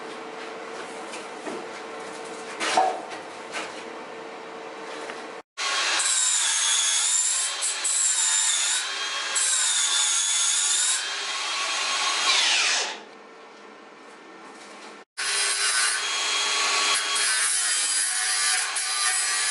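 Angle grinder grinding metal, a loud high whine whose pitch wavers under load; it winds down with a falling whine about thirteen seconds in and starts up again after a brief silence about two seconds later. Before it, about five seconds of quieter steady hum with a couple of knocks.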